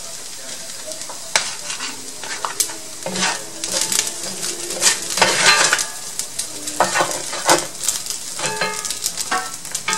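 Fried rice sizzling in a cast-iron skillet while it is stirred and turned with a spatula. From about a second in, the frying hiss is broken by repeated scrapes and knocks of the spatula against the pan.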